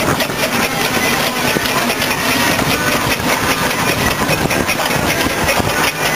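1914 Wallis & Steevens EXP-class steam traction engine working as it drives along, a loud, steady mix of steam and mechanical running noise.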